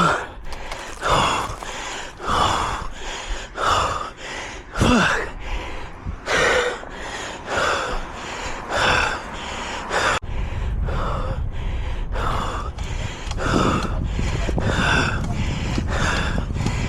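A man gasping for air in hard, heavy breaths about one a second from hard exertion. A low rumble joins in underneath about ten seconds in.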